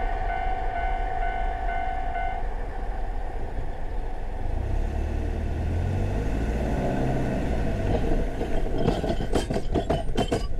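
Japanese railway level-crossing alarm ringing with a rapid repeated electronic ding, which stops about two seconds in as the crossing clears. Then a car engine revs up as the vehicle pulls away, and a quick series of knocks near the end as its tyres bump over the rails.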